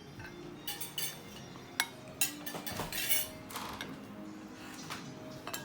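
Cutlery clinking against a plate several times as someone eats, with one sharp clink a little under two seconds in, over quiet background music.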